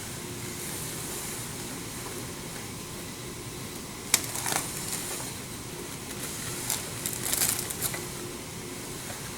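Low-cost dental micromotor drill running with a steady hum. A sharp click comes about four seconds in, followed by short bursts of scratchy crackling over the next few seconds.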